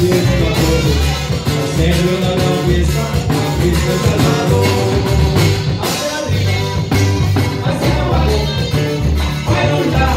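Live norteño band playing with accordion, saxophone, guitar, electric bass and drum kit, with a steady beat and singing.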